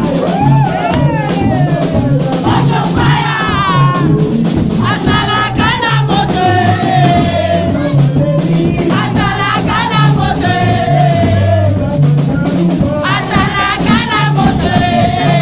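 Live gospel praise music: a singer's voice over keyboard bass and drums, with hands clapping along.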